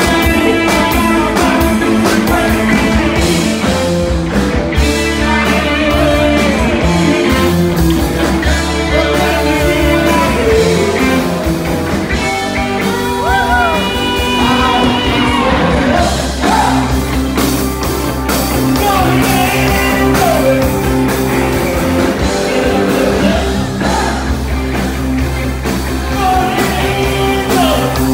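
Live rock band playing loud: electric guitar, drum kit and a lead singer.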